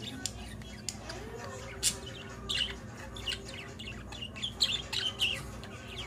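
Pet budgerigars chirping: short, high chirps and squawks scattered through, coming more often in the second half.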